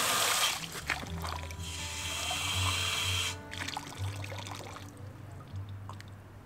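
Water running from a cast-iron street fountain's tap into a plastic bottle, a steady splashing hiss that stops about three seconds in. Background music plays throughout.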